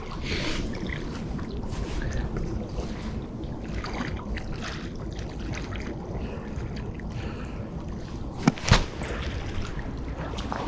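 Steady low rumble of wind on the microphone, with faint rustles and one sharp knock about eight and a half seconds in.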